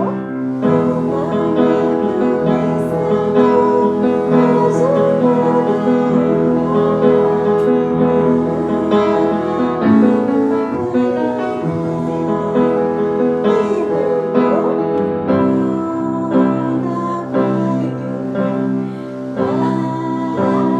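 Piano playing a song with singing voices, led by a woman's voice.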